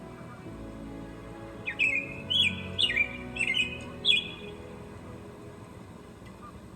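A bird gives a quick series of about five sharp chirps, over soft background music of sustained notes.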